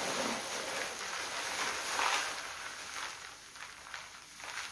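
Lava stone gravel pouring from a plastic bag into a plastic bucket: a rushing rattle of small stones. It is loudest about two seconds in and tapers off near the end.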